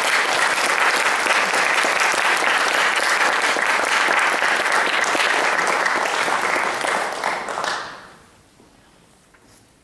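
Audience applauding, dying away about eight seconds in.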